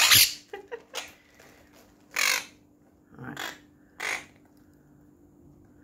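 Quaker (monk) parakeets giving several short, harsh squawks, the loudest right at the start and others about two, three and a half and four seconds in.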